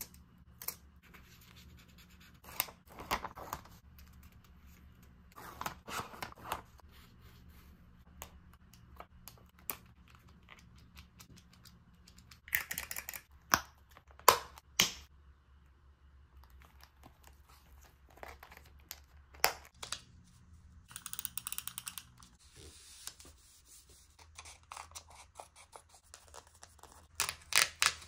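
Paper-craft handling sounds while decorating a journal: scissors snipping paper, paper and stickers rustling and scraping, with light taps and clicks at irregular intervals over a faint low hum. A longer rustle of paper comes about three quarters of the way through.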